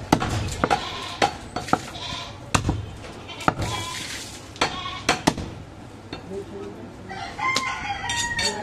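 A heavy butcher's cleaver chopping goat meat against a wooden chopping block, about one chop a second, thinning out after the first five seconds or so. Near the end a rooster crows, a long call that falls away at its end.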